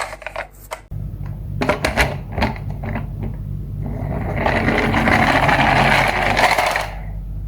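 Toy miniature cars on a slope: a few hard plastic clacks and knocks, then a steady whirring rattle of small wheels running for about three seconds past the middle, over a low hum that starts about a second in.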